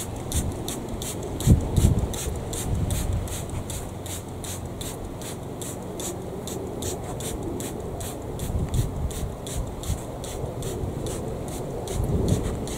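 Tomato foliage rustling and thumping as the plants are pruned and the clippings handled, loudest about one and a half seconds in and again near the end. Over it runs a steady high rasping tick, about three a second.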